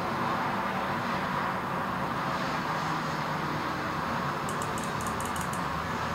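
Steady hiss of background noise. About four and a half seconds in, a quick run of light clicks: the pawls of an SSS clutch hand model ticking over the ratchet teeth as the clutch is turned in its disengaged, ratcheting position.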